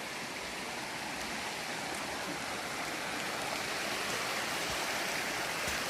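Mountain stream rushing: a steady hiss of running water that grows slowly louder.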